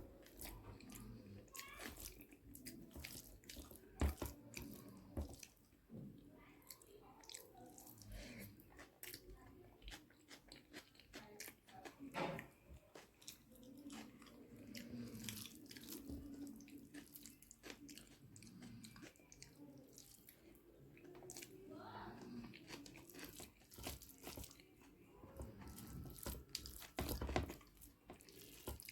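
Close-up eating sounds of a person chewing a mouthful of rice with prawn dalma and potato-brinjal bharta: many short wet clicks and smacks, and a few louder snaps.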